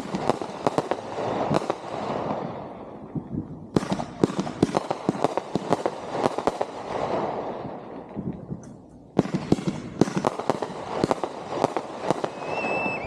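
Consumer (1.4G) fireworks going off in volleys: rapid clusters of sharp bangs, each followed by a spreading crackle that fades away. A fresh volley starts about four seconds in and another about nine seconds in.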